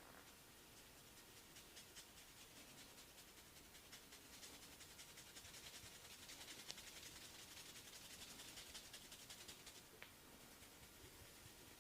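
Faint dry rubbing and scratching of a barber's hands massaging skin and hair, a little louder in the middle of the stretch.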